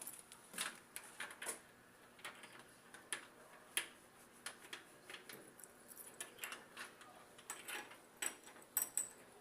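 Faint, irregular small clicks and scrapes of a hairpin being worked in a locked door's lock, trying to pick it open.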